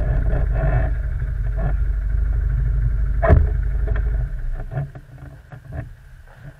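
ATV quad engine running steadily, with one sharp knock about three seconds in; the engine sound falls away about four seconds in, leaving a few faint clicks.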